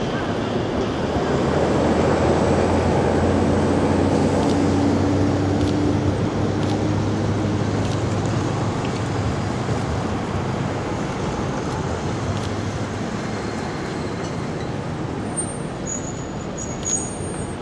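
Road traffic on a city street: a steady wash of passing vehicles, with a low engine hum in the first half that slowly fades.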